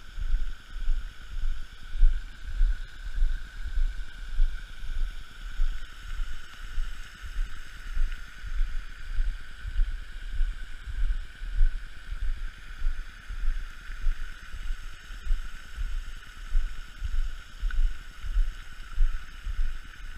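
Wind buffeting the microphone in uneven low gusts, with a faint steady high-pitched drone underneath.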